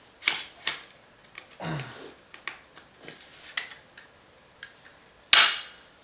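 Plastic clicks and clacks of a polymer AR-15 handguard half being worked onto the upper receiver, with a loud snap about five seconds in as the half seats in place.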